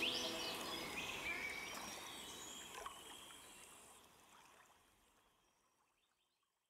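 Outdoor ambience of moving water with a few bird chirps in the first second or so, and a single sharp click about three seconds in, all fading steadily away to silence.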